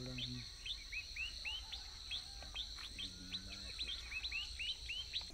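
Rural outdoor ambience: small birds giving quick repeated chirps, about four a second, over a steady high insect drone. Soundtrack music fades out at the very start.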